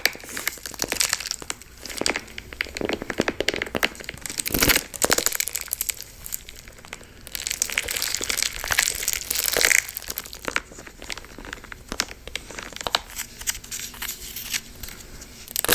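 Wax being crunched and cracked for ASMR: a dense, irregular run of crackles and crunches, with a few louder crunches along the way.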